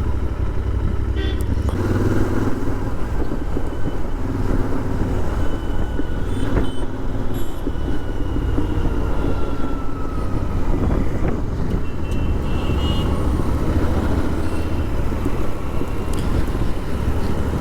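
Wind rushing over a helmet-mounted microphone whose foam wind cover is missing, over the low drone of a Royal Enfield Interceptor 650's parallel-twin engine while riding on the road.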